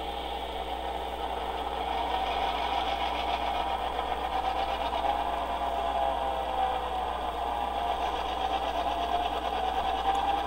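Tsunami2 sound decoder's GP7 diesel prime mover sound, played through an HO-scale locomotive's small factory speaker, running steadily and growing louder about two seconds in as the model gets under way. The 7-band equalizer is boosting the low-middle frequencies, so that part of the engine sound comes through stronger.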